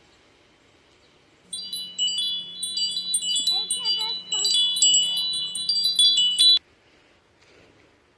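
Chimes tinkling: many high ringing tones struck in quick succession, over a low steady hum. They start suddenly about a second and a half in and cut off abruptly about five seconds later.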